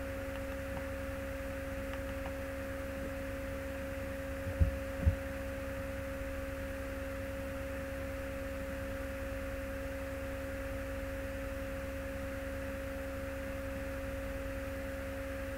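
Steady electrical hum in the recording: a constant mid-pitched tone with a lower tone beneath it over faint hiss. It is broken about five seconds in by two low thumps half a second apart.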